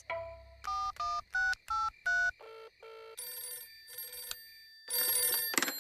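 Cartoon mobile phone keypad beeping as about six buttons are dialled, each a short two-note beep, followed by two short buzzing ring tones. Near the end a telephone bell rings loudly once.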